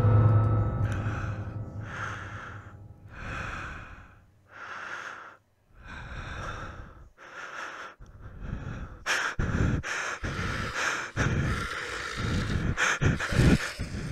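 Heavy, rhythmic breathing as a horror sound effect, about one breath a second, quickening about nine seconds in with low thumps added.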